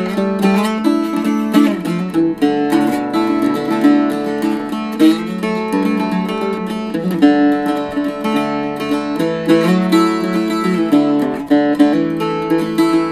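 Solo playing on a hand-built Bulas A-style mandolin-family instrument with eight strings in pairs: a picked melody with strummed chords, a steady stream of quick note attacks.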